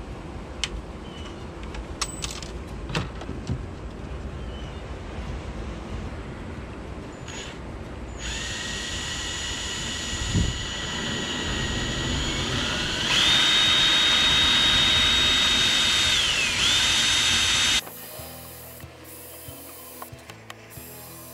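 Power drill motor running in a steady whine that steps up to a higher speed partway through, dips briefly, then stops suddenly. Before it there are scattered handling clicks and knocks.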